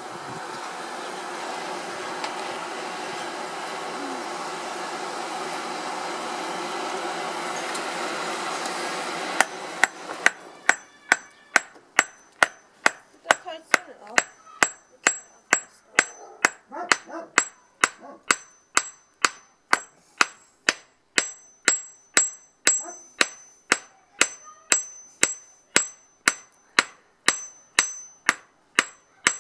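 A hair-dryer blower feeding a coal forge runs steadily for about the first nine seconds. Then a hand hammer starts striking a red-hot iron bar on a small steel block used as an anvil, about two ringing blows a second, forging a bodkin arrowhead.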